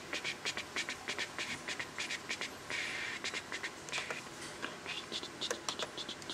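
Rapid, irregular clicks and scratching close to the microphone, several a second, with a longer scratchy stretch a little before halfway.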